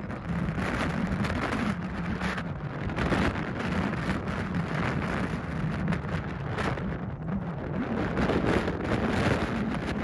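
Wind buffeting the microphone: a continuous rushing, rumbling noise that keeps swelling and easing in gusts.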